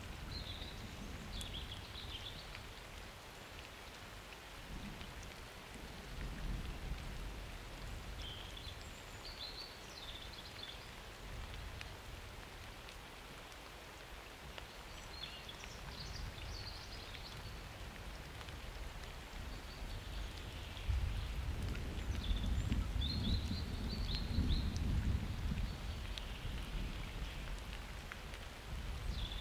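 Summer thunderstorm: steady rain falling, with thunder rumbling low, strongest about two-thirds of the way through. Short high chirps come and go over the rain.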